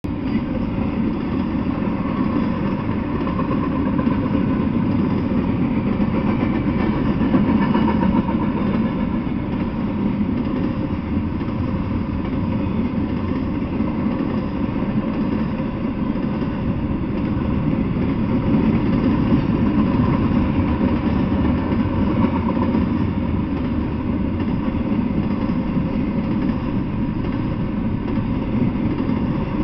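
Double-stack intermodal freight train rolling past, a steady rumble of steel wheels on the rails with no breaks, swelling slightly now and then.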